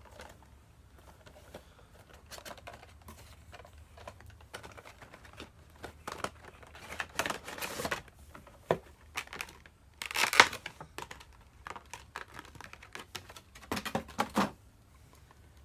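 Packaging of a Funko Pop vinyl figure being handled and opened: irregular crinkling, rustling and light clicks of cardboard and plastic. There are a few louder rustles in the middle and near the end.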